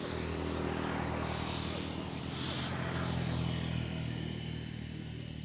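A motor vehicle passing on the road, its engine and tyre noise swelling to a peak about three seconds in and then easing off.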